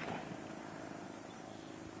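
The tail of an AR-15 rifle shot's echo dying away, then a low, steady outdoor background with a faint hum.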